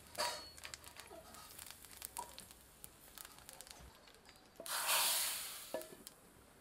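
Hot oil tempering of spices poured from an iron pan into a pot of sambar, hissing loudly for about a second as it hits the liquid, then dying away. Scattered faint crackles come before it.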